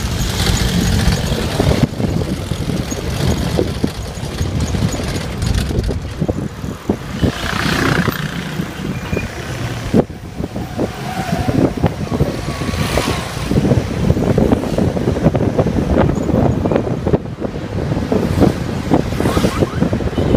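Inside a moving vehicle: a steady engine and road rumble, dense with knocks and rattles as it travels over a rough road.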